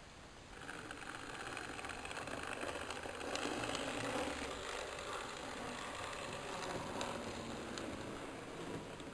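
GN15-scale model train running past on its track through a model mine tunnel, growing louder toward the middle and fading again, with a few sharp clicks.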